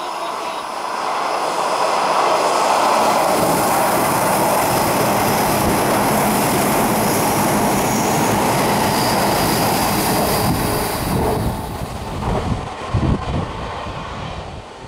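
Hanshin 8000 series electric train passing through the station at speed without stopping: a loud, steady rush of wheels on rail that builds over the first two seconds and holds. It fades about twelve seconds in, giving way to irregular low gusts.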